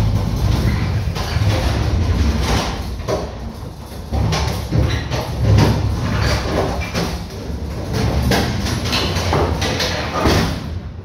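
Hand pallet jack clanking and rolling across the wooden floor of a box-truck trailer, with repeated knocks and rattles over a steady low rumble.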